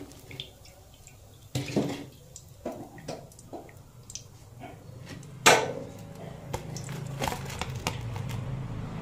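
Wire-mesh skimmer clinking and scraping against a metal wok while fried chops are lifted out of the oil and tipped onto a plate. It is a scattered run of small clicks and knocks, with one loud clank about five and a half seconds in, over a low steady hum.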